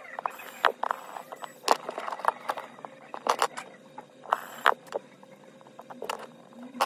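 Precision screwdriver working the tiny screws inside an opened iPhone 8 Plus: irregular small metallic clicks and taps as the bit seats, turns and lifts screws off the phone's internal bracket.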